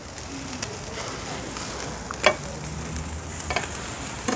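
Kitchen knife cutting food on a ceramic platter, with a few sharp taps of the blade on the plate over a steady hiss.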